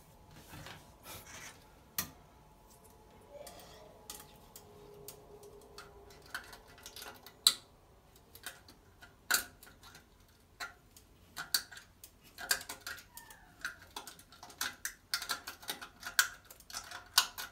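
Metal wire grabber tool clicking and scraping against the porcelain of a toilet drain as it is worked down the trap to grab a stuck object. The clicks come scattered at first, then thick and fast in the second half.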